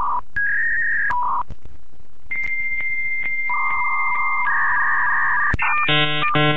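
Dial-up modem handshake: a run of steady electronic tones at shifting pitches, including a long high tone broken by short regular clicks, then harsh buzzy chords near the end.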